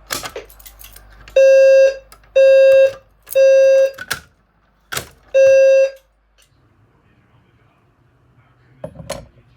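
Fire alarm low-frequency sounder, likely an EST Genesis, sounding a low-pitched, buzzy tone in the temporal-3 evacuation pattern: three half-second beeps, a pause, then one more beep before it stops as the walk-test activation ends. A few sharp clicks come near the start and a knock near the end.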